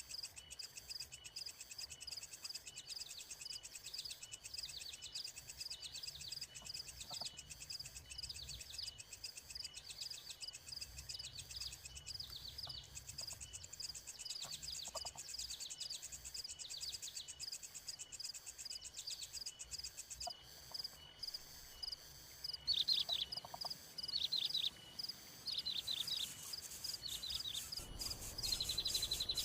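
Outdoor wildlife ambience: insects trill steadily at a high pitch while short, falling chirps repeat about once a second, getting louder in the last few seconds.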